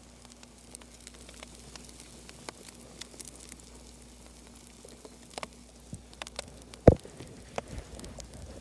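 Faint crackling and popping of a fireplace video playing on a TV, with scattered small clicks and one sharp knock about seven seconds in.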